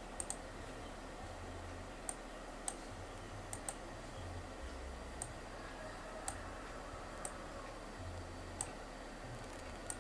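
Computer mouse clicking at irregular intervals, about ten sharp clicks including a couple of quick double clicks, over a faint steady hiss.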